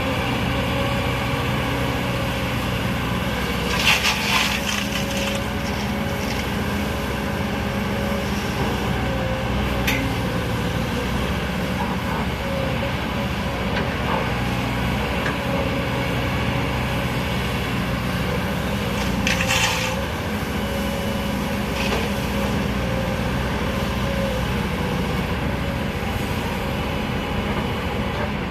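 Sany excavator's diesel engine running steadily as it works, with two louder noisy bursts about four and nineteen seconds in and a few sharp knocks.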